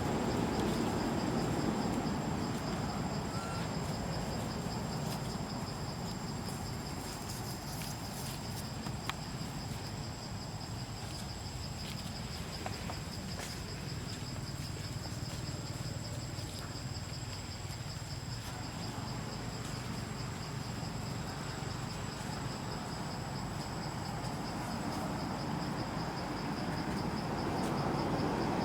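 Insects calling in a steady high-pitched drone, over a low background rumble that is louder near the start and the end.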